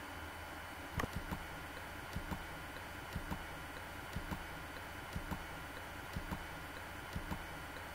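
Faint steady room hiss with a regular pair of soft ticks about once a second.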